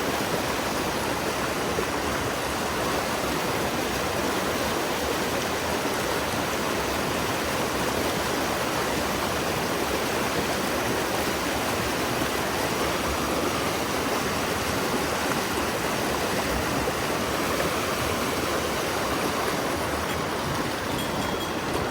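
Mountain stream water rushing, a steady even noise with no breaks.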